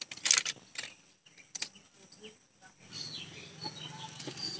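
A few sharp crackles and snaps in the first couple of seconds, the loudest about a third of a second in, from a hand-held bundle of dry sticks burning. After that, short high bird chirps over a low, steady background.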